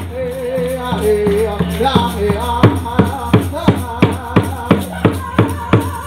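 Native American song for a dance: voices singing a wavering melody over a steady percussive beat that settles into about three strokes a second.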